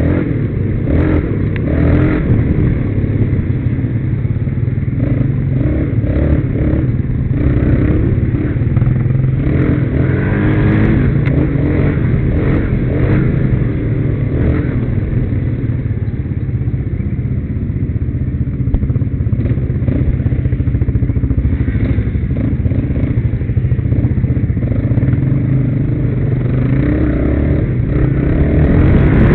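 Quad bike engine running under way over a bumpy dirt trail, its note rising and falling with the throttle, with clattering knocks from the machine over the bumps.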